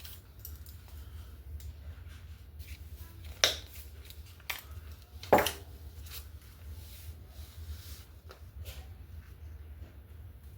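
Small craft supplies being handled on a table: a few sharp clicks and taps, the two loudest about two seconds apart, with light rustling in between over a steady low hum.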